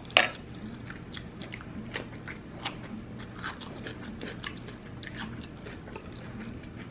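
A person biting into and chewing fresh cucumber. There is one sharp crunch just after the start, then many small crisp clicks of chewing.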